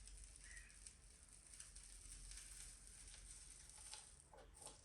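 Near silence, with faint scratchy rustling and a couple of light clicks near the end.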